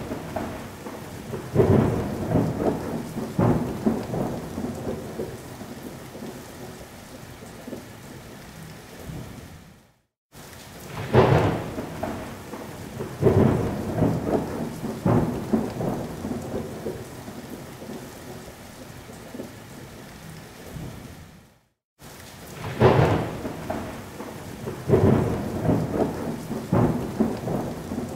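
Heavy rain with loud thunder claps and rolling rumbles. The same stretch of thunderstorm recording repeats about every twelve seconds, each pass cut off by a brief moment of silence before the next opening thunderclap.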